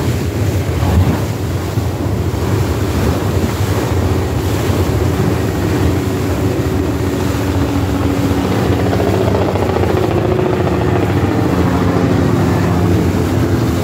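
Wind buffeting the microphone on a moving tour boat's open deck, over the boat's steady engine drone and rushing water. A faint droning hum with a slightly wavering pitch joins about four seconds in.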